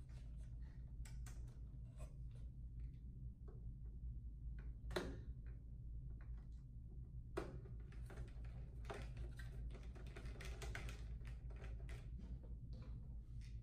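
Hand screwdriver driving small screws into a metal power-supply casing: scattered light clicks and metallic taps, with a sharper knock about five seconds in and another a couple of seconds later, then a busier run of ticking. A steady low hum sits underneath.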